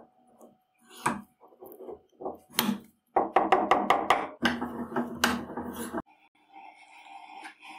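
Brass pin being press-fitted into a steel sleeve under a bench press. Scattered sharp clicks and creaks come first, then a fast run of clicks about three seconds in as the pin is forced home, then a dense crackling grind that stops abruptly about six seconds in.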